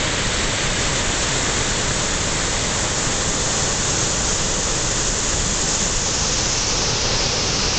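Waterfall pouring steadily into a rock canyon, a loud, even rush of water with no change.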